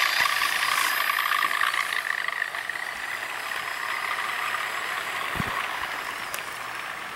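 HO scale model train running past: the locomotive's electric motor whines, loudest at the start as it goes by and slowly fading as the freight cars roll along the track. A single dull thump comes about five and a half seconds in.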